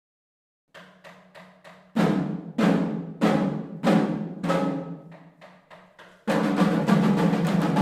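Shinkari melam ensemble of chenda drums with ilathalam cymbals. It opens with a few soft strokes, then loud single beats about every half second with a long ring. At about six seconds it breaks into fast, continuous drumming.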